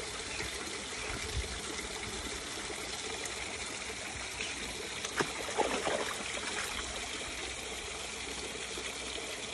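Shallow stream water trickling steadily, with a few brief small splashes from a dog wading and nosing in the water about five to six seconds in.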